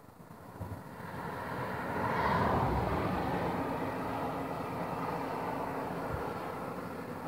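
A car passing close by on the road: a rush of tyre and engine noise that swells to a peak about two and a half seconds in, then carries on steadily.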